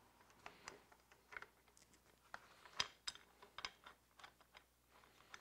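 Faint, irregular clicks and light knocks of a motorcycle hand guard and bar-end weight being handled and fitted onto the end of a handlebar, the sharpest click a little before halfway.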